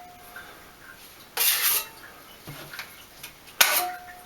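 Steel spackle knife scraping drywall joint compound: two short scrapes about two seconds apart, the second with a brief metallic ring.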